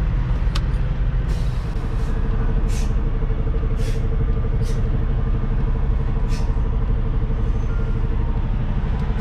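Semi truck's diesel engine running with a steady low hum, a thin steady whine joining about two seconds in. A click near the start and about five short hisses come at irregular moments.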